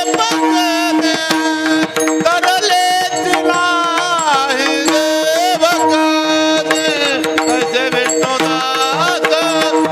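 Marathi kirtan singing: a man's voice carrying an ornamented, gliding devotional melody over a steady drone, with hand-drum strokes keeping time.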